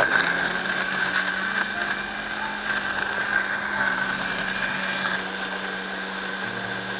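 Panasonic countertop blender switched on and running at a steady pitch as it purées sauce ingredients into a liquid. It comes on abruptly and settles a little quieter after about five seconds.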